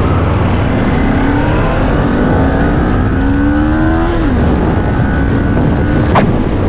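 Sport motorcycle engine pulling away and accelerating, its pitch climbing and then dropping at a gear change about four seconds in before rising again, heard from the pillion seat with heavy wind rumble on the microphone. A short sharp click near the end.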